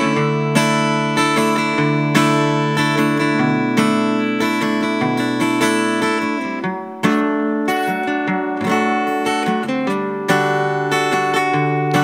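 Solo acoustic guitar playing the song's instrumental intro, picked notes and strummed chords ringing, with no singing yet. A fresh strong chord comes in about seven seconds in and again after ten.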